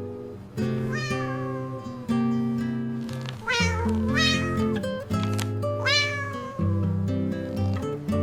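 Cat meowing four times, each meow rising then falling in pitch, over gentle background music.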